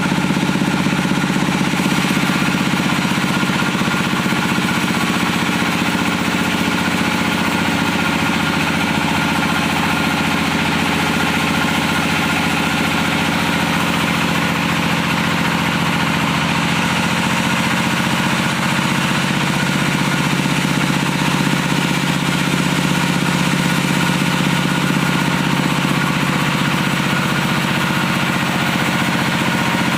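Stationary diesel engine driving a sawmill's wood saw, running steadily at an even speed.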